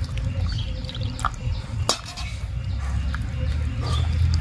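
A hand squishing and stirring wet semolina, coconut and milk batter in a steel bowl, with two sharp clicks about a second and two seconds in, over a steady low rumble.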